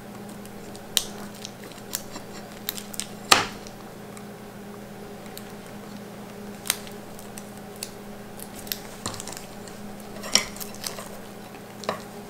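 Small clicks and taps of hands working tape and a thin lead-wire cable on a bench, with the aluminium beam knocking lightly against the work surface as it is moved; a sharper knock comes a little over three seconds in, over a steady low hum.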